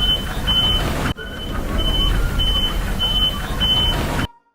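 Heavy truck engine rumbling, with a short high electronic beep repeating about every two-thirds of a second. The sound breaks off briefly about a second in and stops abruptly near the end.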